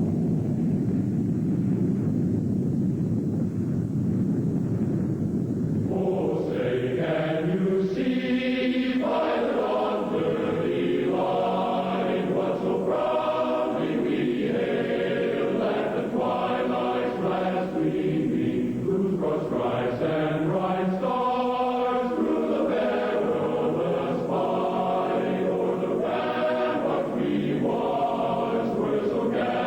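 A low, steady rumble for about the first six seconds, then a choir singing slow, sustained chant-like chords.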